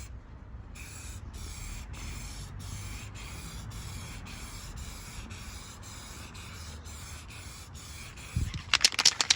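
Paint being put on the newly welded steel air tank: a scratchy hiss broken into regular strokes about three a second. A few loud knocks come near the end.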